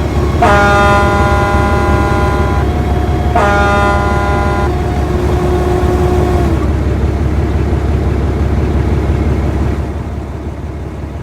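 Vehicle air horns honking in two long blasts, each several tones sounding together, the second trailing into a lower tone for a couple of seconds, over a steady low engine rumble. The vehicle noise fades near the end.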